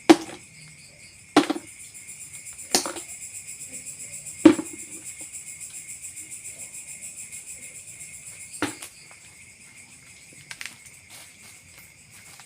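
Forest insects, crickets or cicadas, buzzing steadily, with a pulsing rhythm of about five beats a second through the middle stretch. Five sharp knocks or snaps stand out, the loudest near the start and about four and a half seconds in.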